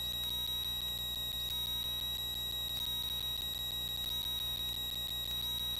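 Steady high-pitched electronic whine over a faint low hum, unchanging throughout: electrical noise on a light aircraft's intercom audio feed while nobody is talking.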